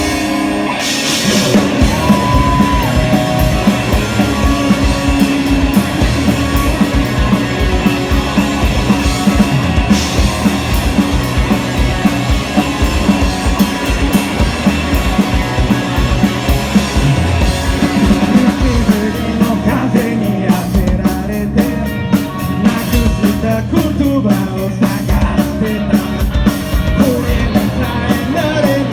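Rock band playing: drum kit and guitar with a singing voice, loud and driving.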